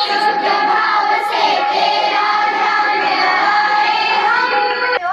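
Children singing together over steady instrumental accompaniment, cutting off suddenly at the very end.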